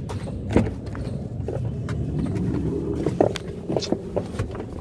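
Handling noise from a phone microphone rubbing and knocking against clothing as a person climbs into a car, with a steady low rumble and several sharp knocks.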